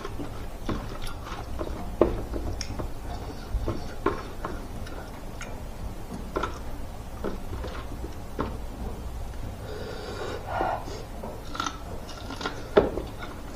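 Close-up eating sounds: chewing and lip smacks with scattered sharp clicks, the loudest about two seconds in and again near the end, where a bite is taken from a boiled corn cob. A steady low hum runs underneath.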